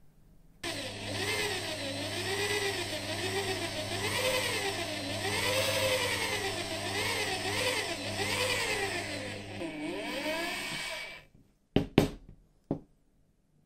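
Handheld electric drill running, spinning a wooden rod against rollers clamped in a vise. The motor's pitch rises and falls repeatedly as the speed changes. It cuts off near the end, followed by three sharp knocks as the tool is put down.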